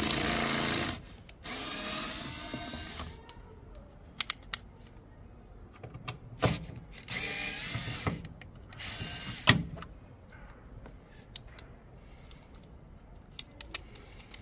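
Cordless drill-driver running in several short bursts of a second or two, with sharp clicks between them, as it backs out the two bolts holding a car's tail light.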